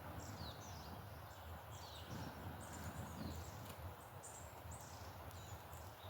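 Faint birdsong: a small bird's quick series of short, high chirps and down-slurred notes, repeating over a low outdoor rumble.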